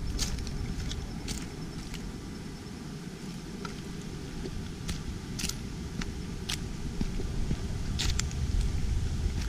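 Outdoor ambient rumble picked up by the camera's microphones while it is carried on a handheld gimbal, with short sharp clicks and crackles about once a second.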